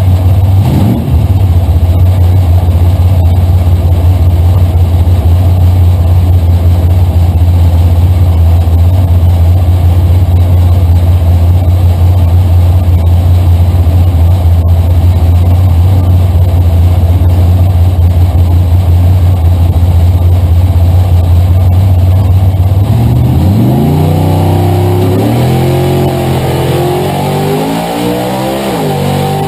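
A drag-racing Camaro's engine, heard from inside the cockpit, running loud and steady at one speed. About three-quarters of the way in it begins revving up and down repeatedly as the car moves off.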